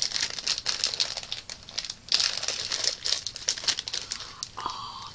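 Plastic snack packet crinkling as it is handled and crumpled in the hands: a dense, crackly rustle, louder at the start and again about two seconds in.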